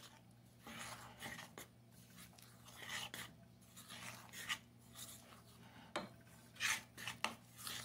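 A spoon stirring and scraping flour into a wet dough mix in a glass bowl, a string of soft, irregular rasping strokes with a sharper tap against the bowl about six seconds in.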